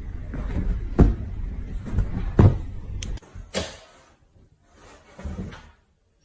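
A few dull knocks and bumps, roughly a second apart, over a low rumble that cuts off about three seconds in; fainter rustling follows.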